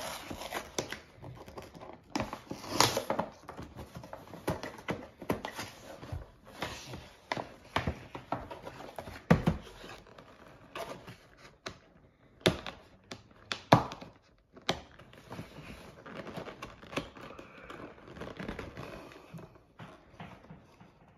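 Cardboard-backed plastic blister packaging being pulled and torn open by hand: irregular crinkling, tearing and clicking, with a few sharper knocks.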